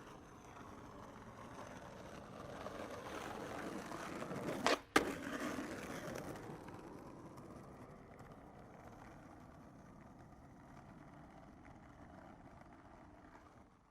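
Skateboard wheels rolling over pavement, growing louder and then slowly fading, with a brief break in the rolling followed by a sharp clack about five seconds in.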